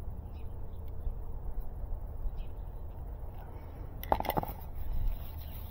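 Steady low wind rumble on the microphone, with faint small clicks of hand tools being handled. About four seconds in there is a short clatter as a tool is set down on the work surface.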